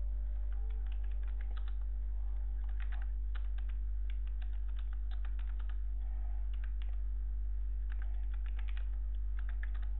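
Typing on a computer keyboard: a run of quick, irregular key clicks. A steady low hum lies beneath the typing.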